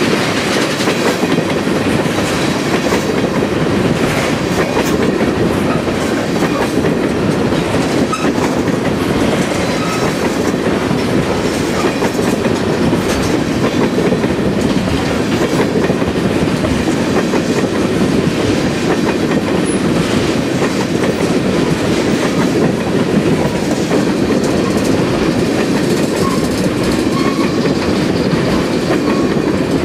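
Freight train of tank cars rolling past at steady speed: a constant rumble of steel wheels on rail with a running clickety-clack.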